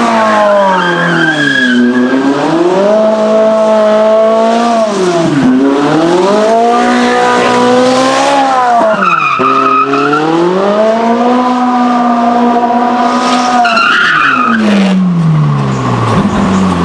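Ferrari 458's 4.5-litre V8 revving up and dropping back about four times while the car drifts, with the rear tyres squealing as they spin and slide.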